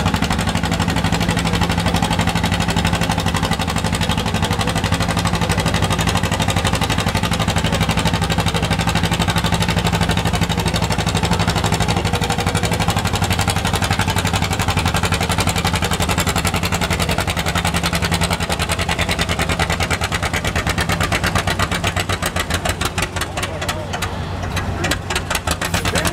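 Antique John Deere two-cylinder tractor engine running hard under load, pulling a weight-transfer sled with a fast, even beat. Near the end the beat slows and the separate firing pulses come through more clearly as the pull winds down.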